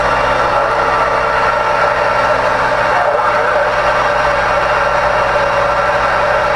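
Steady hiss and rushing static from a CB radio receiver's speaker with the squelch wide open, over a low steady hum.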